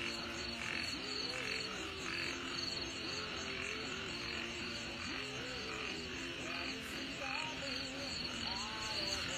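Frogs croaking in a chorus, short rising-and-falling calls repeating about once or twice a second, over a steady pulsing insect chorus.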